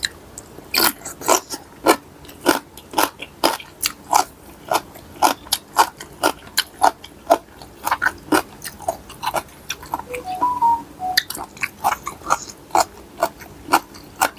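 A person chewing and crunching mouthfuls of mixed seafood papaya salad close to the microphone, with crisp bites coming about two or three times a second.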